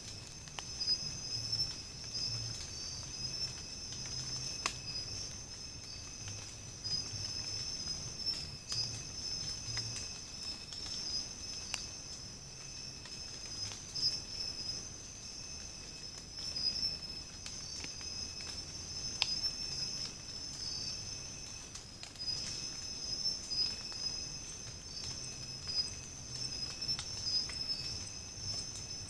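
Nocturnal insect chorus: a steady high-pitched trilling with a fainter steady tone below it, and a few faint scattered ticks.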